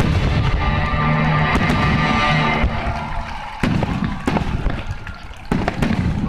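Music playing, which stops a little under three seconds in, followed by a few fireworks bursting in loud separate bangs that ring out.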